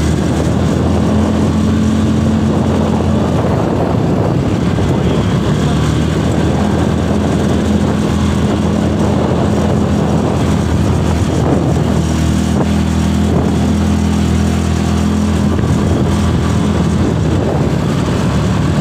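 ATV engine running steadily while riding, a continuous low motor hum with a slight shift in pitch now and then.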